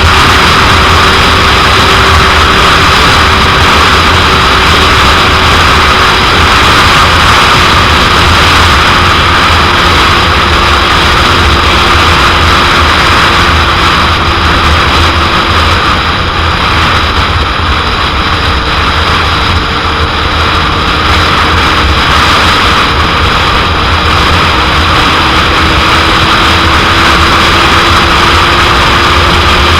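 Heavy wind noise rushing over the microphone of a moving motorcycle, over the steady drone of a 2001 Suzuki GSX-R750's inline-four engine at cruising speed. The engine note sags a little about halfway through and climbs back near the end.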